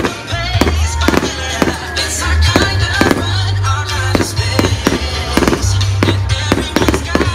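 Aerial fireworks exploding in a rapid, irregular series of sharp bangs, about three a second, with music playing underneath.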